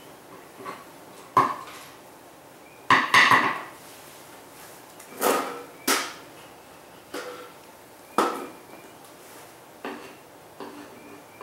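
Beekeeping equipment being handled during a bee package installation: about ten irregular knocks and clatters of hard objects, the loudest a cluster about three seconds in.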